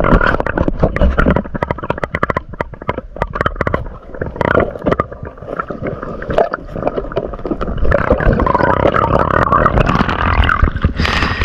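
Muffled underwater gurgling and rumbling of moving water against an action camera's housing, with many small clicks and knocks. Near the end comes a sudden burst of splashing as the camera breaks the surface.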